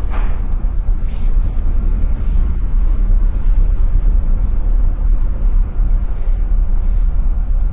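Strong wind buffeting the phone's microphone over the low rumble of a container ship under way in rough seas.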